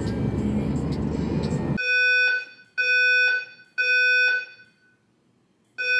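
Road noise inside a moving car, cut off suddenly about two seconds in by a building fire alarm. The alarm gives three high, piercing beeps about half a second each, pauses, then starts again near the end: the temporal-three evacuation signal.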